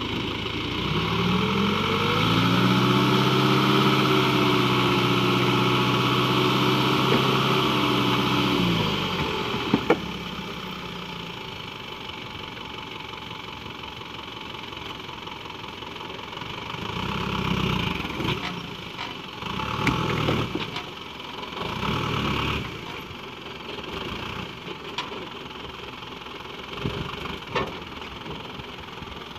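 Light dump truck's engine revved up and held high for several seconds to drive the tipper hydraulics that raise the loaded bed, then dropping back to idle about nine seconds in. It keeps idling, with a few shorter bursts of sound later on.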